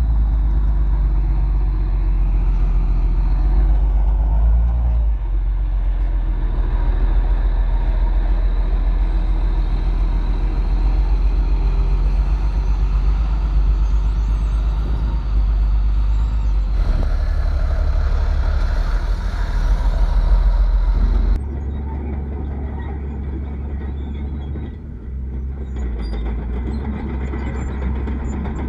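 Heavy diesel earthmoving machinery, bulldozer and dump truck, running with a deep steady engine rumble. The sound changes abruptly about 17 seconds in and again about 21 seconds in.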